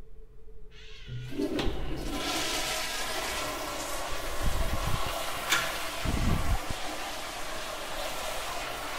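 Commercial toilet with a lever-operated flushometer valve being flushed: the rush of water starts suddenly about a second in and carries on steadily.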